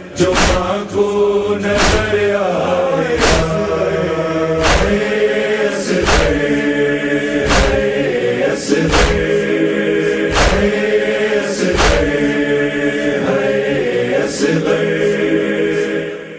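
Noha lament chorus: several voices chanting a drawn-out refrain over sharp, regular beats about every second and a half. The sound fades near the end.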